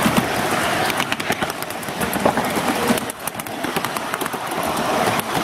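Miniature ride-on railway cars rolling along the track: a steady rolling rumble with quick clicks and clatter from the wheels on the rails.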